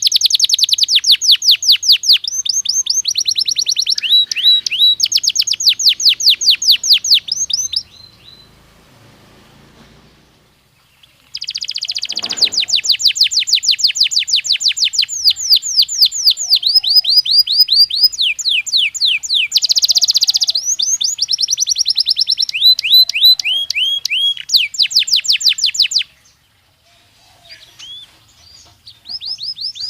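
Belgian canary singing in long phrases of rapid, repeated trilled notes, high-pitched. The song pauses about a third of the way in and again near the end, then starts up once more.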